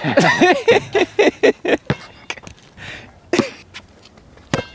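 A person's voice in a quick run of short, even syllables, about four a second, for roughly the first two seconds. Then a few scattered sharp knocks and one brief call.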